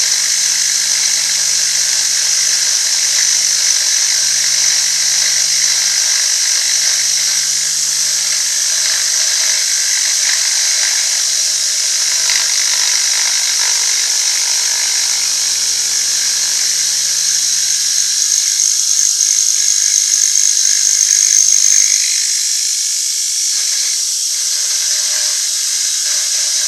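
Milling machine running a 3/8-inch insert cutter at about 1500–1600 RPM, taking a 25 thou cut along a metal face: a steady, high-pitched cutting noise over the spindle's hum. Near the end it grows a little louder with a thin whine, then eases off.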